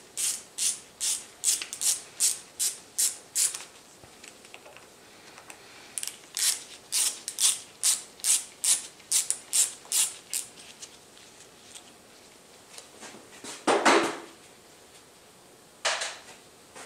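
A ratcheting screwdriver backing out the screws of a motorcycle's clutch master cylinder reservoir cover. It clicks in two runs of about two and a half strokes a second, one per screw. Near the end comes one louder scrape or clunk as the cover parts are handled.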